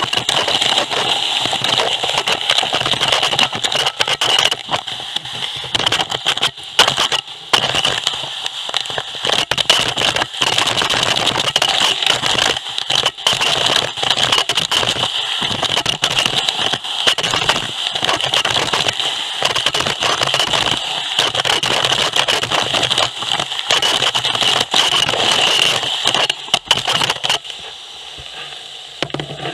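Gutter vacuum sucking moss and debris out of a roof gutter through a carbon-fibre pole: a steady high-pitched rush of air at the nozzle, with constant crackling and rattling as debris is drawn up the tube. It drops away sharply near the end as the nozzle is lifted out of the gutter.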